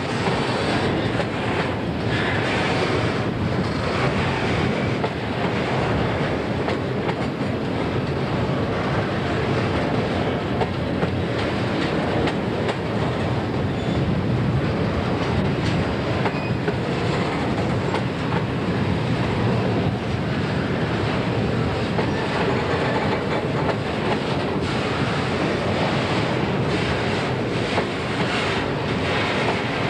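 Loaded freight wagons of a steel train rolling past in a steady, continuous rumble of wheels on rail, with a light clatter of wheels over the rail joints.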